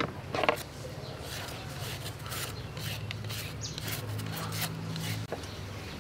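Vegetables being peeled by hand: short, irregular scraping strokes of a peeler on a carrot and a knife on an onion's skin, over a low steady hum.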